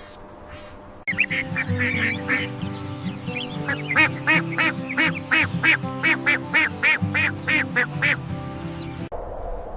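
A rapid series of short repeated animal calls, about three a second, over steady background music that starts abruptly about a second in.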